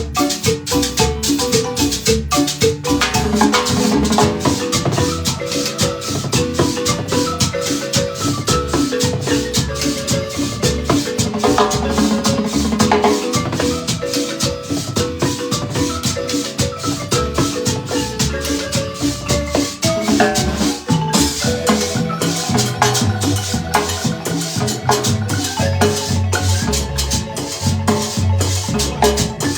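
Marimba ensemble playing a lively piece, with many quick mallet strokes over a steady bass line and a shaker keeping time.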